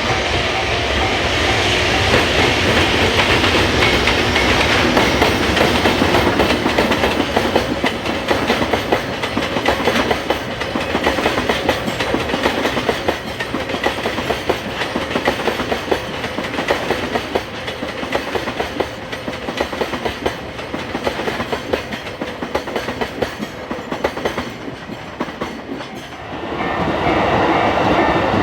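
Trains passing over a level crossing: a steady rumble with fast clickety-clack of wheels over rail joints. It eases off through the middle, then another train comes through loudly near the end.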